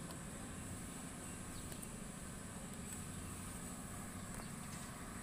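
Steady low hum of an idling engine, with no sudden sounds.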